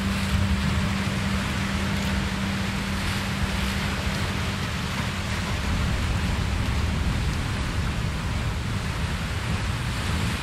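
Relaxation soundtrack of steady ocean-surf noise, with a low held tone that stops about halfway through.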